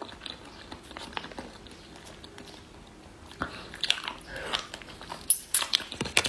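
Mouth sounds of someone eating jelly from a stick sachet: short wet clicks and smacks. They are sparse at first and come thick and loud in the second half.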